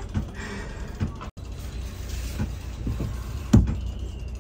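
Companionway hatch of a sailboat being worked open by hand: creaking and scraping with a few sharp knocks, the loudest about three and a half seconds in, over a steady low background rumble.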